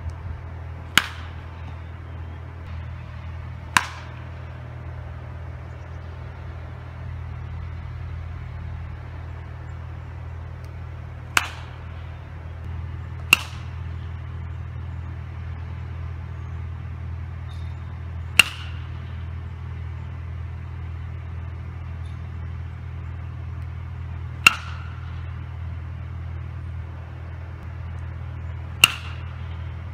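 Baseball bat striking pitched balls in batting practice: seven sharp cracks at irregular intervals, some with a brief ringing tail, over a steady low rumble.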